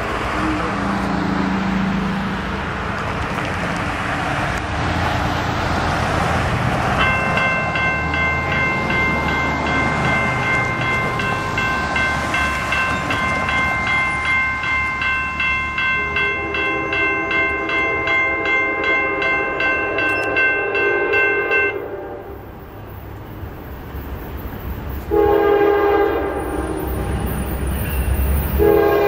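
A car passes, then a grade-crossing warning bell starts ringing rapidly about a quarter of the way in and cuts off about three-quarters through. A Norfolk Southern GE D9-44CW diesel locomotive's air horn sounds as the train approaches the crossing: one long blast over the bell, a short blast after the bell stops, and another blast starting at the very end.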